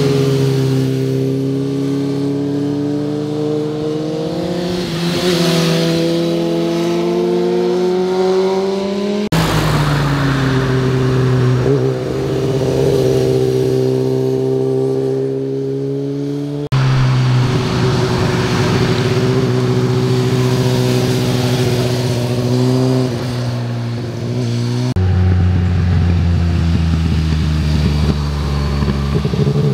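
Sport motorcycle engines pulling through a bend one after another, the note rising and falling as each bike accelerates out of the corner and passes. The engine sound changes abruptly three times as different bikes take over, a Honda sportbike among them.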